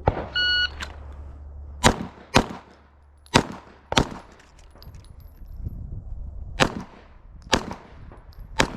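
Shot timer beeping once to start, followed about a second and a half later by a string of about seven handgun shots, mostly in quick pairs. The shooter says one of them was fired unintentionally.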